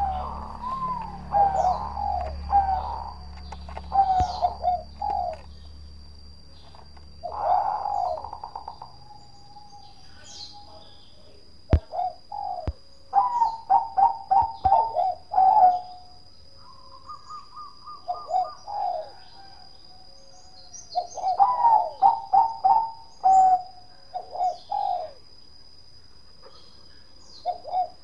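Bangkok-type zebra dove (perkutut) cooing: phrases of quick, bubbling rising-and-falling notes, repeated with pauses of a few seconds between them.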